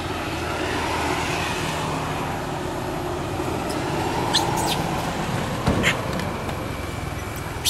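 Steady low rumble of a vehicle engine running and road traffic. A few short clicks come a little past the middle, and a single thump follows about six seconds in.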